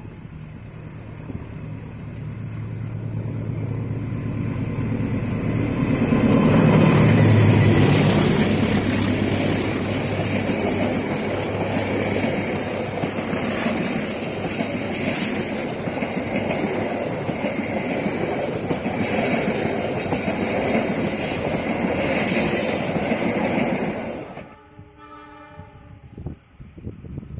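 Diesel-hauled passenger train passing close: the locomotive's engine drone builds and is loudest about seven seconds in. The carriages then roll by with wheels clacking over the rail joints until the sound drops off sharply near the end. After that the train is heard only faintly from far off, with a distant horn.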